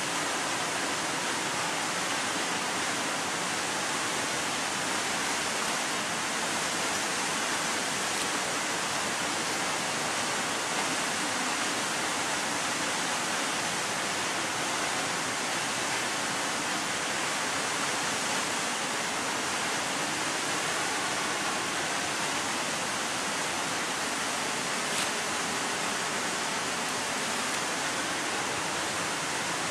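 Waterfall: water pouring over rock ledges, a steady, even rushing hiss.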